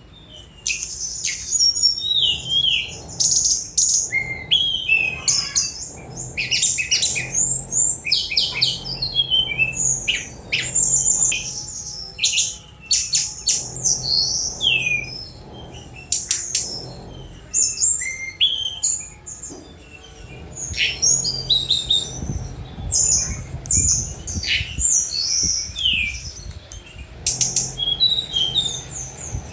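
Tledekan gunung, a small flycatcher, singing a fast, busy song of sharp chirps, rapid trills and down-slurred whistles, with short pauses between phrases.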